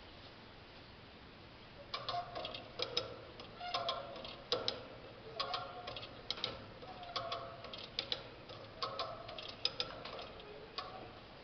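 Hand ratchet come-along being cranked under load, its pawl clicking in bursts with short metallic tones. The bursts begin about two seconds in and repeat roughly every second and a half to two seconds, about six strokes.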